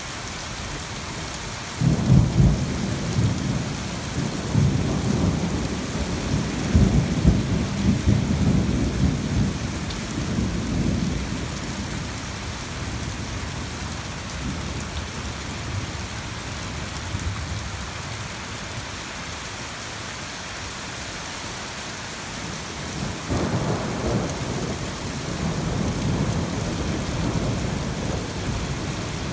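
Thunderstorm: a steady hiss of rain, with a loud rumbling peal of thunder that begins suddenly about two seconds in and rolls on for about nine seconds. A second, softer rumble of thunder comes near the end.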